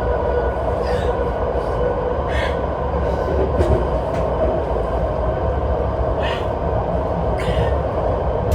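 Steady rumble and hum of a moving vehicle, with a few short clicks through it.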